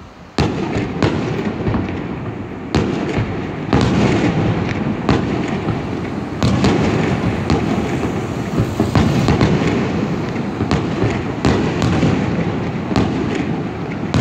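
Aerial fireworks shells bursting in a rapid series of bangs, about one or two a second, over a continuous rumble.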